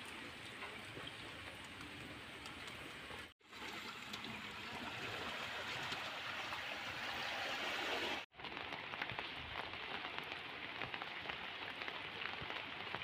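Steady rain falling, an even hiss with no distinct events, broken off abruptly twice, about three and eight seconds in, where the sound cuts.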